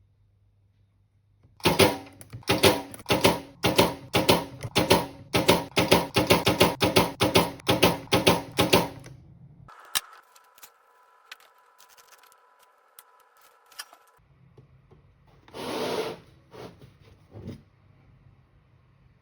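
Battery spot welder firing in a quick run of loud, sharp snaps, about twenty welds over some eight seconds, as copper connector strips are welded onto 18650 cells. A quieter steady high whine follows for about four seconds, then a brief hiss near the end.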